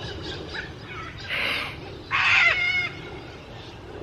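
Galahs calling: a short call about a second in, then a longer, louder one about two seconds in.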